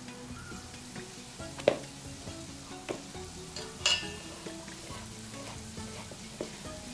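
Wet stirring with a wire whisk through batter in a stainless steel bowl, with a few sharp clinks, the loudest under two seconds in and another about four seconds in. Soft background music plays underneath.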